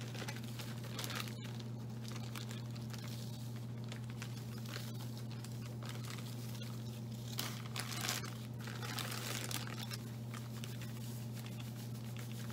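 Clear plastic bag of borax powder crinkling in irregular spells as it is squeezed and tipped, over a steady low hum.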